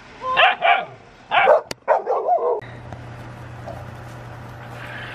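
Dog barking and yipping, sharp barks in quick pairs, cut off abruptly about two and a half seconds in. A steady low hum follows.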